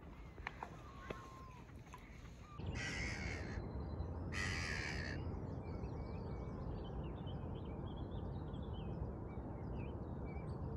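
A crow cawing twice, each call about a second long, then many small birds chirping and twittering over a low steady background. Before that, fainter whistled bird calls with a few soft clicks.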